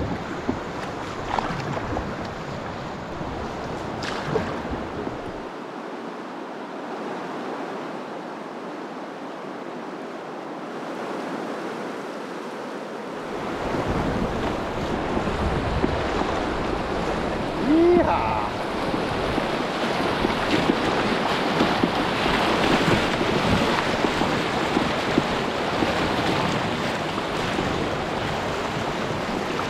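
Wind and moving water, with wind rumbling on the microphone. The rumble drops away for several seconds, then the wind and water noise grows louder about halfway through. A single short rising call cuts through about two-thirds of the way in.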